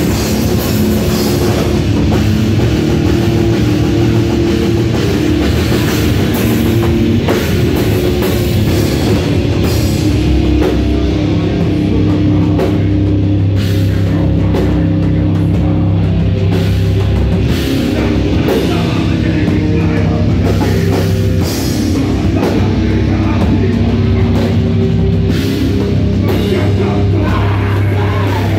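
A heavy metal band playing live and loud, with drum kit hits over low, sustained bass and guitar notes.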